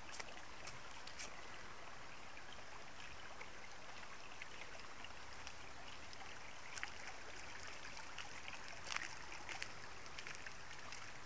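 Shallow creek trickling steadily over rocks, with a few scattered light clicks, the strongest about nine seconds in.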